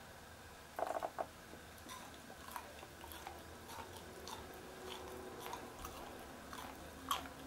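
Close-miked eating sounds of chewy, sticky seasoned dried pollack: a brief rapid rattle about a second in, then faint scattered clicks and wet crackles, with a sharper click near the end.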